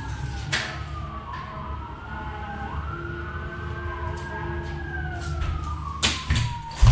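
Emergency vehicle siren wailing, its pitch slowly rising and falling, with two sharp metallic knocks near the end.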